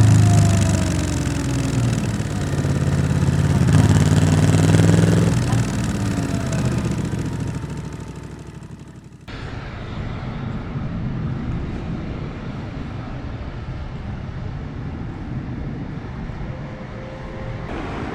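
Yamaha XSR700's 689 cc parallel-twin running through an SC-Project exhaust. Its pitch falls as it slows, picks up again about three to four seconds in, then fades away. About nine seconds in the sound cuts off abruptly to a quieter, steady vehicle rumble.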